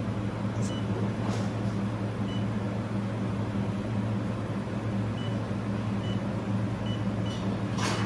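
Steady electrical hum of a handheld fiber laser welding machine running, with about six short high beeps from its control panel as parameters are keyed in.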